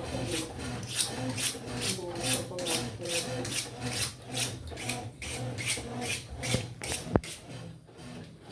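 Consul washing machine in its rinse cycle making a rhythmic rasping scrape, about three strokes a second, over a steady motor hum, with a sharp click about seven seconds in. This is the strange noise that the owner cannot explain.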